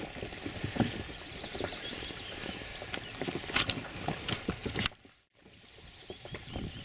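Scattered knocks and handling noises in an inflatable boat on the water. The sound drops out for a moment about five seconds in, then gives way to a quieter, steady hiss of wind over open water.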